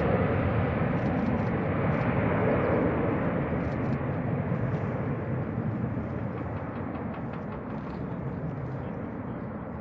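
Ilyushin Il-76TD's four Soloviev D-30KP-2 turbofans at takeoff and climb power: a broad jet rush with a low rumble underneath, fading steadily as the freighter climbs away.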